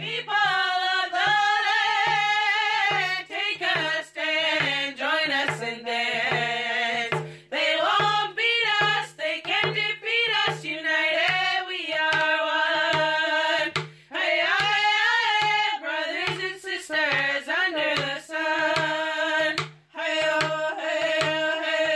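Women singing a thanksgiving song over a steady hand drum beat, about one and a half beats a second, with short breaks between phrases.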